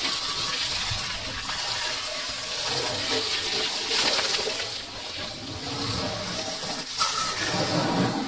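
A jet of water from a garden hose spraying and splashing onto a motorcycle, a steady hiss with a short dip about five seconds in.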